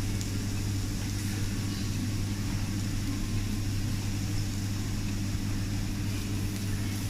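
Steady low hum with an even hiss over it: a teppanyaki griddle sizzling under a running extractor hood.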